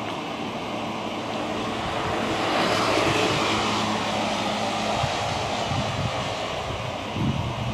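A passing engine: a steady low hum under a wash of noise that swells to its loudest about three seconds in and then fades away.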